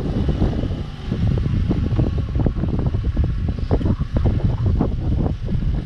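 Wind buffeting the microphone on a boat under way: a loud, low, gusty rumble that rises and falls unevenly.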